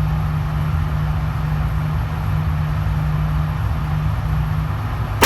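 A steady low hum, then a single loud pistol shot right at the end.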